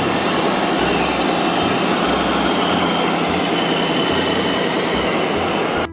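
A steady, even rushing noise, loud and unbroken, that cuts off suddenly near the end.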